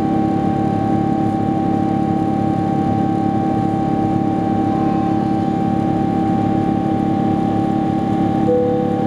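Boeing 777-200ER jet engines heard inside the passenger cabin during climb-out: a steady drone with two held tones over a low rumble. A short tone sounds briefly near the end.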